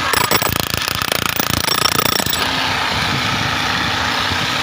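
A power drill is cutting a hole in a concrete slab. It makes a rapid, rattling hammering for the first couple of seconds, then runs more steadily with a hum.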